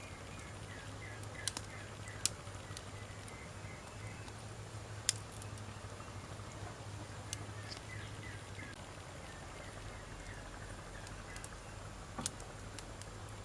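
Wood fire crackling: a steady soft hiss with a handful of sharp, separate pops, the loudest about two seconds in and five seconds in. Runs of faint high chirping come and go in the background.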